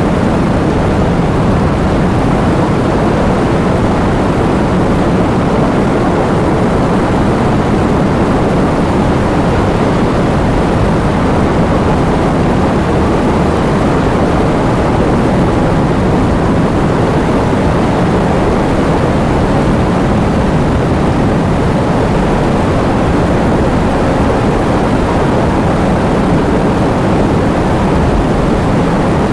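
Heavy rain with wind: a loud, steady, even rush of noise, deep rather than hissy, with no single drops, gusts or pauses standing out.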